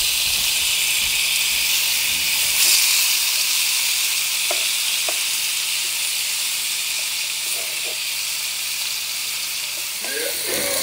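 Seasoned lamb chops sizzling steadily in hot corn oil in a frying pan, with a few faint taps of metal tongs as the chops are laid in.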